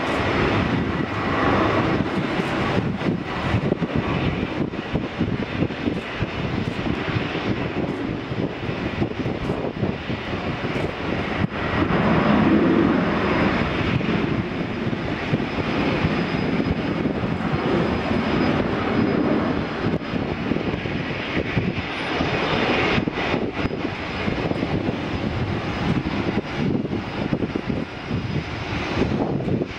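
Boeing 737-800's twin CFM56-7B turbofans at takeoff thrust, a steady jet roar as the airliner accelerates down the runway and lifts off near the end.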